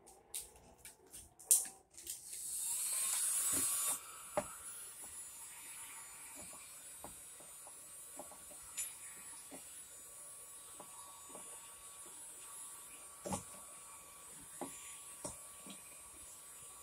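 Handheld electric heat gun blowing with a rising hiss for about two seconds, then cut off. A few sharp clicks come before it, and faint scattered clicks and taps after it as the vinyl wrap is handled on a plastic trim piece.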